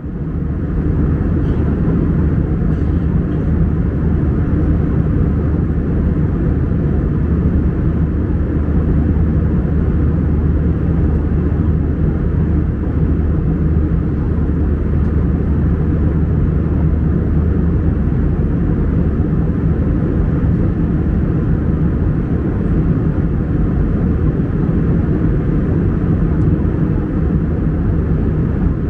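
Airplane cabin noise in flight: a steady, low rumble that fades in at the start and then holds even.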